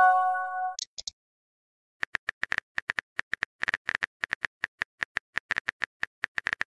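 Messaging-app notification chime, a short chord of a few held tones, as a chat bubble arrives. After a brief pause, rapid irregular clicks of a phone's on-screen keyboard as a reply is typed.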